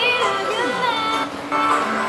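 A female singer sings a Japanese pop ballad live into a microphone over instrumental backing, moving through a phrase and then holding a note.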